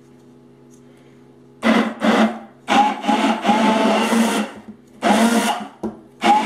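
Immersion blender pulsed in a tall cup of liquid sauce with chopped onion: about five short bursts starting about a second and a half in, the third one longer than the rest. Short pulses chop the onion coarsely rather than puréeing it.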